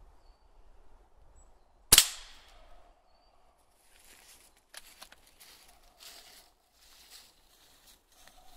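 A single sharp shot from a Hammerli AirMagnum 850 CO2 air rifle about two seconds in, fading quickly. No burst from the aerosol target can follows: the can was empty, and the pellet only holed it. Later come a string of short rustling noises.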